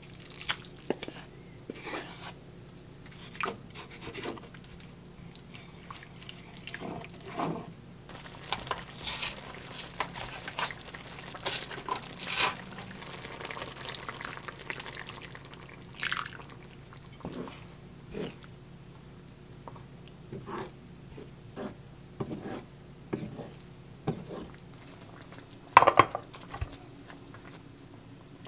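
Cooking sounds from a nonstick frying pan of chicken curry: utensils clink, tap and scrape against the pan while the liquid sloshes and bubbles as onions and cream are stirred in. A sharp knock about 26 seconds in is the loudest sound.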